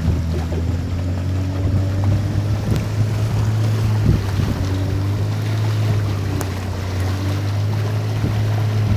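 A river boat's engine running at a steady speed, a constant low drone, with rushing water and wind noise around it.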